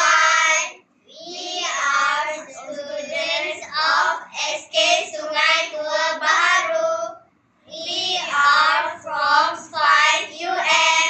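Children's voices singing a song, in phrases broken by short pauses about a second in and about seven and a half seconds in.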